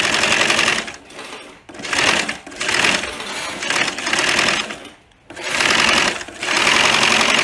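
Industrial cylinder-bed sewing machine stitching binding along the edge of a shoe upper. It runs in stop-start bursts of stitching, with short pauses as the work is turned.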